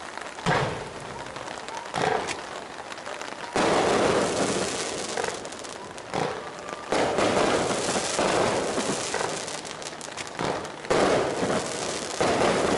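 Fireworks going off: a string of sudden bangs, about eight in all, with dense crackling between them, thickest in the second half.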